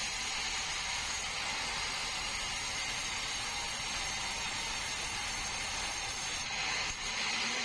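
Sawmill saw blade cutting through a bengkirai log: a steady, even, high-pitched hiss of the blade in the wood, with a brief dip near the end.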